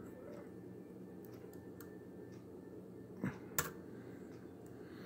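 Small clicks and taps of a lock pick and tension wrench working the pins inside a pin-tumbler lock, with two sharper clicks close together about three seconds in, over a faint steady hum.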